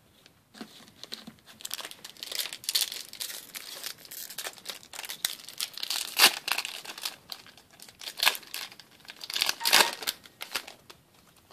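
Foil Yu-Gi-Oh booster pack wrapper being crinkled and torn open by hand: a run of crackly rustles, with two louder crackles about six and ten seconds in.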